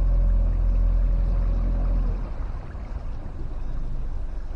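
Motorboat engine running: a steady low drone with a faint steady tone above it, which drops in level about two seconds in.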